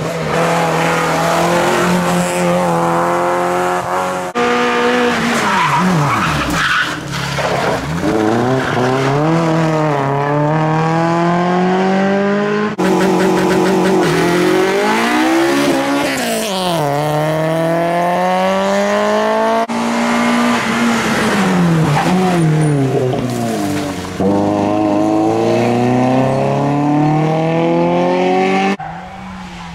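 Rally cars' engines revving hard and changing up through the gears, the pitch climbing and dropping again many times, with tyre squeal. The sound cuts between several cars, with one engine held at steady revs for a second or so midway.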